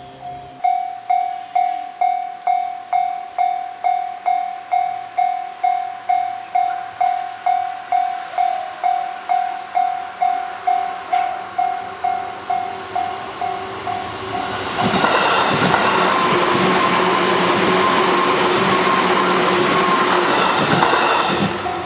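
Japanese level-crossing alarm ringing its electronic bell at about two strikes a second. About fifteen seconds in, an electric train passes loudly and drowns it out for several seconds, with a regular clatter of wheels over rail joints. The bell is heard again at the end.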